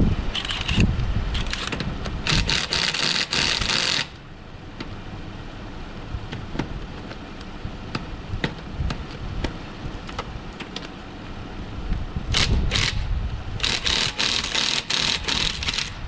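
Ryobi cordless impact wrench hammering at a wheel's lug nuts in four bursts, two near the start and two near the end, each a second or two long. Under them runs a steady low rumble of a running vehicle and wind on the microphone.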